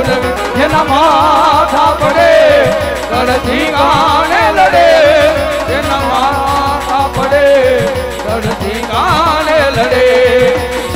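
Gujarati devotional folk song: a voice singing an ornamented, wavering melody over fast hand-drum strokes whose low notes slide downward, with a steady held note underneath.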